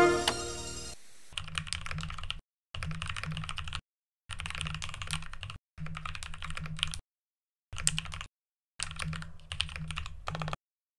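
Rapid typing on a mechanical keyboard, in six runs of quick key clicks about a second long, each broken off by a short dead silence. Music fades out at the very start.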